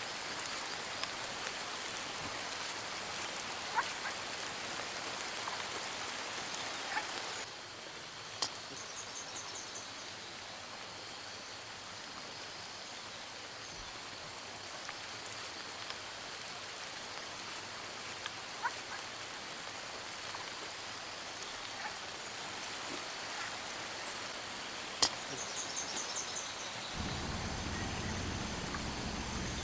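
Wet forest ambience: a steady hiss with faint, short high-pitched chirps repeating about once a second, two quick high trills and a few sharp clicks. A low steady hum comes in near the end.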